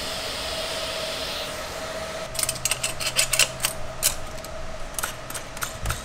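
Stainless steel exhaust fittings and tools being handled on the bench: a quick, uneven run of sharp metallic clicks and clinks with a dull knock near the end. Before that, a steady hiss stops about a second and a half in, over a faint steady hum.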